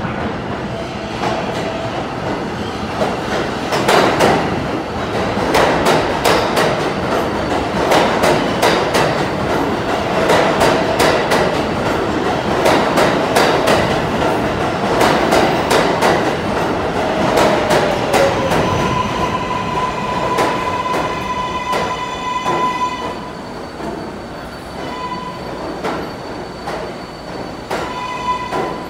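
R188 subway train pulling into an underground station: heavy rumbling with a rapid run of wheel clicks over the rail joints as the cars pass. About two-thirds of the way through, a whine falls in pitch as it slows, then a high squeal comes and goes as it brakes to a stop.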